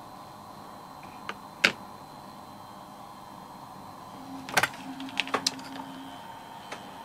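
Sharp clicks from handling and pressing the controls of a Hasselblad H1 with a Leaf Aptus 22 digital back as it powers on. About four seconds in, a low, steady motor hum runs for about two seconds, with several clicks over it.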